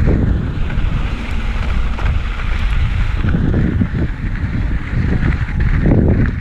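Wind buffeting the microphone of a camera carried on a mountain bike while riding a dirt trail: a loud, steady rush with a heavy, uneven low rumble.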